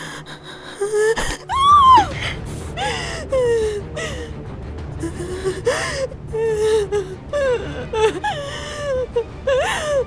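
Frightened, high-pitched gasping and whimpering from a person in distress, in short broken cries that rise and fall, over a low, steady music underscore.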